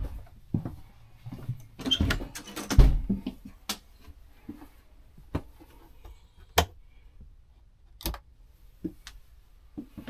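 Footsteps and knocks moving through the small interior of an Airstream travel trailer, with several sharp clicks; one of them, a little past halfway, is the wall rocker switch for the RV water heater being pressed.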